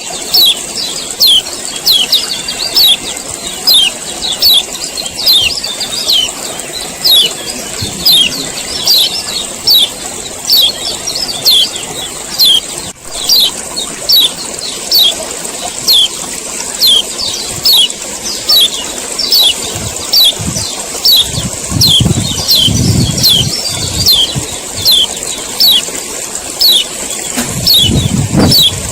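Male kecial kuning (yellow white-eye) giving its sharp 'ciak ciak' call over and over, short falling high notes at a steady pace of more than one a second, over a constant high hiss. A low rumble comes in over the last several seconds.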